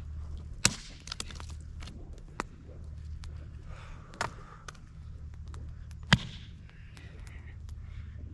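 Wood campfire crackling, with scattered sharp pops, the loudest just under a second in and about six seconds in, over a steady low rumble.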